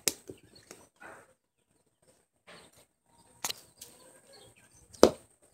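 Handling noise from a phone being moved about: scattered knocks and rubs, with one louder sharp sound about five seconds in.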